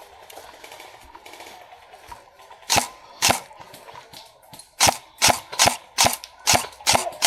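Airsoft gun firing single shots: two sharp cracks about half a second apart near three seconds in, then a quicker run of seven shots, about three a second, from about five seconds in.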